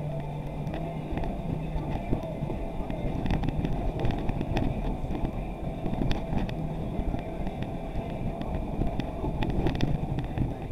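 Off-road vehicle driving, with its engine running steadily under frequent short clicks and rattles.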